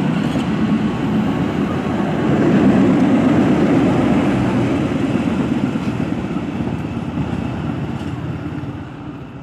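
A train running along the rails, a steady heavy rumble that fades out near the end.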